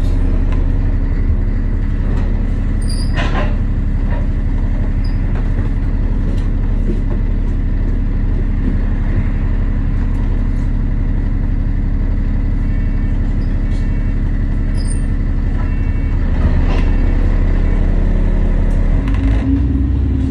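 A London bus's engine idling steadily, heard from inside the bus while it stands still. Its low note changes and grows a little louder near the end as the bus begins to pull away.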